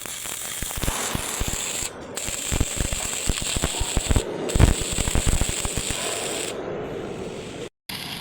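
Electric arc welding on steel C-channel: a continuous crackle of irregular pops and sputters with a steady high whine over it. The sound cuts out for a moment near the end.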